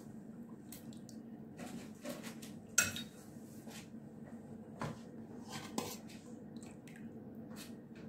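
Metal spoon clinking and scraping against a large aluminium cooking pot and a serving bowl as pieces of stewed lamb are lifted out: a handful of scattered clinks, the loudest about three seconds in, over a steady low hum.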